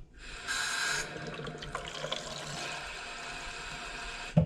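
Water pouring into the water tank of a stick vacuum's mop attachment as it is filled, a steady rush that is loudest in the first second. It stops near the end with a single knock.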